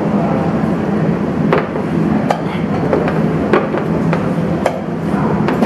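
Sharp knocks from play at a makruk (Thai chess) game, about seven irregularly spaced, over a steady background din.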